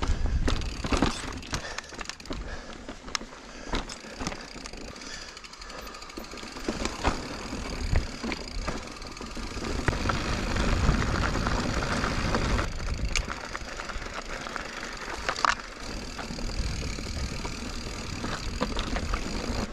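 Full-suspension mountain bike (2021 Giant Reign Advanced Pro 29) ridden over rocky trail, heard from the bike's camera: tyres rolling on rock and dirt, with many sharp knocks and rattles as it hits bumps. The rushing noise swells about halfway through.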